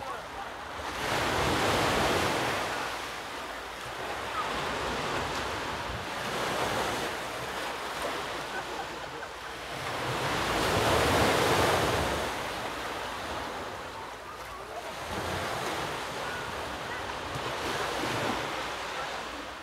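Ocean waves washing onto the shore in slow swells, loudest about two seconds in and again about eleven seconds in, with wind buffeting the microphone.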